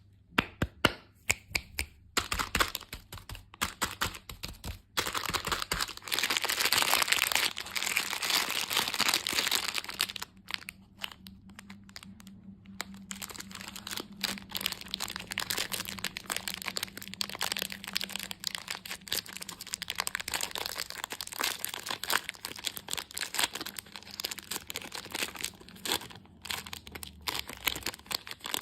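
Close-up crinkling and tearing of candy wrappers and packaging, with sharp cracks and snaps. The crackling is densest and loudest from about five to ten seconds in, eases briefly, then carries on in many small crackles.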